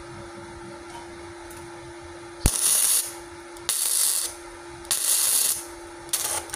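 Gasless flux-core MIG welder arc crackling and spitting in four short bursts of about half a second each, starting about two and a half seconds in, on thin 0.7 mm light-gauge steel with the current set too high. A steady low hum runs between the bursts.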